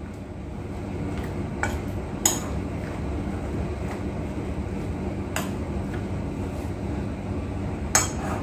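Metal spoon stirring sliced sausage in a bowl, with a few sharp clinks of the spoon against the bowl, over a steady low background hum.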